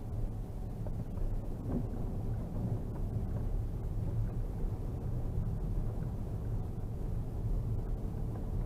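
Škoda Superb II with the 3.6-litre V6, heard from inside the cabin while driving over a packed-snow road: a steady low rumble of tyres and engine.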